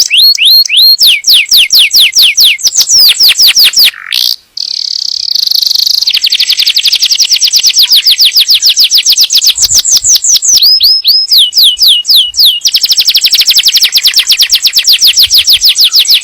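Domestic canary singing loud, rapid trills: each phrase is one short falling note repeated over and over, and the phrases change speed from slower to very fast rolls. There is a brief break about four seconds in.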